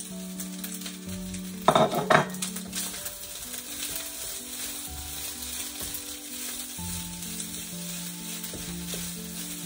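Soy-sauce fried rice and sausages sizzling in a hot wok, stirred with a wooden spatula. A short clatter of knocks about two seconds in as the sausages are scraped off a plate into the pan.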